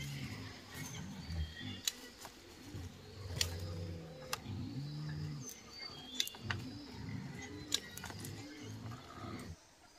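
Ripe tomatoes being snapped off the vine by hand and dropped into a woven bamboo basket: a sharp click every second or so. Underneath is a low, rising-and-falling pitched sound that cuts off suddenly near the end.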